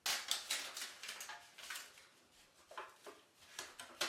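Aluminum foil tape being handled and pressed into place: an irregular run of small crinkles and clicks.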